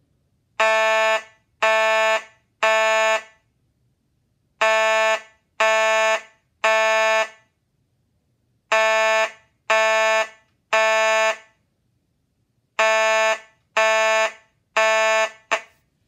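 Simplex 2903 fire alarm horn sounding loud pitched blasts in groups of three with a pause between groups: the temporal-three evacuation pattern. There are four groups, each blast about half a second long and tailing off briefly, with one short extra blast near the end.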